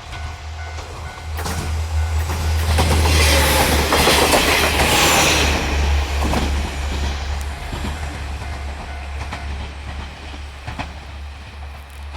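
Diesel railcar train passing over a level crossing, its wheels clattering over the rail joints; it is loudest about three to five seconds in, then fades away. A crossing warning bell rings at the start and stops about a second and a half in.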